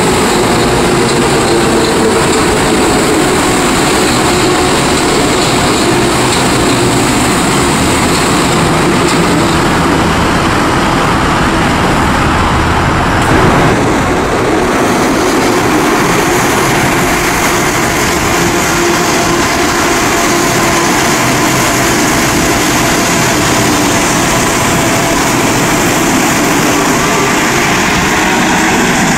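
Santiago Metro rubber-tyred trains running on open track: a steady rumble with an electric whine that slowly falls in pitch in the first half, then a second whine rising as another train comes through in the second half.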